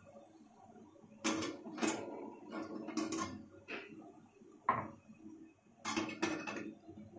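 Metal idli plates knocking and clinking against the steamer pot as the filled idli stand is lowered in and settled. It is a run of short metal knocks, several close together through the first few seconds and two more near the end.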